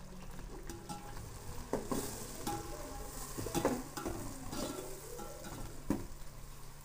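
Sliced onions and green chillies sizzling in hot oil in a stainless steel pot while a steel ladle stirs them, knocking and scraping against the pot with brief metallic rings at irregular intervals.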